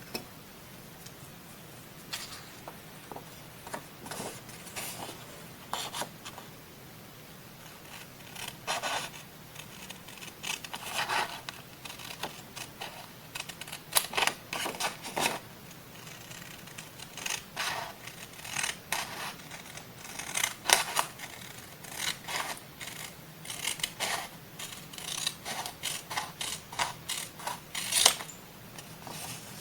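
Scissors cutting paper in a series of short, irregular snips, with the crisp rustle of the paper being handled between cuts.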